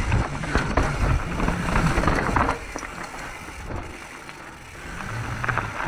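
Mountain bike riding a trail: tyres running over rough ground with the bike rattling and clicking. The noise eases about two and a half seconds in and builds again near the end.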